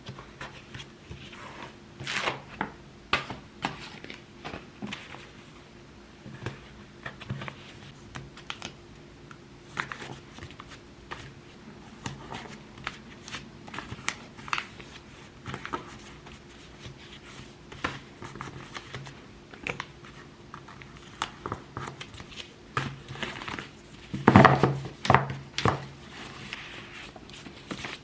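Paper and plastic packaging being handled: rustling, crinkling and tearing with scattered small clicks and taps, and a few louder rasping strokes near the end.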